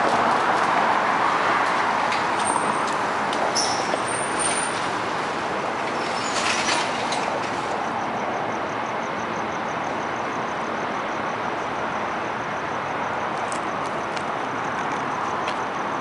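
Motorised fire-station garage door closing: a steady mechanical rumble with a few brief high squeaks, and a faint rapid ticking from about halfway through, over steady street traffic noise.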